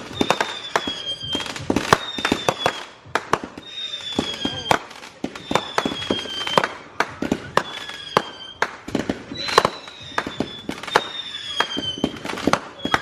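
Fireworks going off: a dense run of sharp pops and bangs, with a high whistle that falls slightly in pitch sounding for under a second about once a second.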